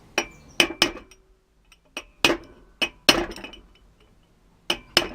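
Sharp metal-on-metal hammer taps, about nine in irregular groups of two or three, each leaving a short metallic ring: a new rear wheel bearing being tapped home into its seat in the hub.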